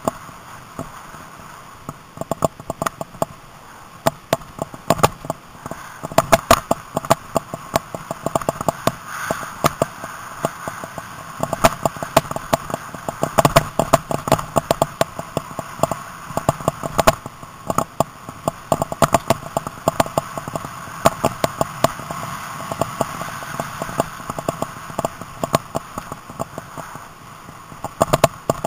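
Mountain bike clattering over rough, rutted ground, with dense irregular knocks and rattles, likely heard through the camera mount, over a steady whirring.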